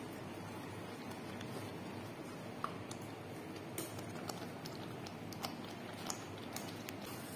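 Thick shrimp-paste sauce cooking in a pot, stirred with a wooden spatula: a steady low hiss with scattered small clicks and pops, the sharpest about two and a half seconds in and several more in the second half.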